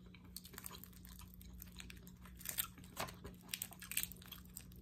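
Crisp, crunchy crackling of a whole head-on fried shrimp's shell being pulled apart by hand, with chewing, in short scattered crackles close to the microphone.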